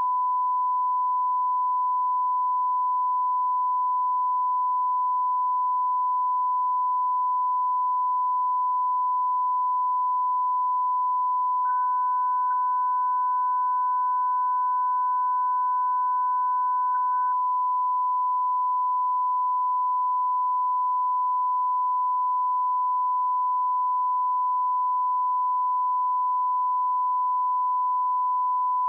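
Steady, unbroken reference test tone, the line-up tone that goes with colour bars. A fainter, higher second tone joins it for about six seconds near the middle.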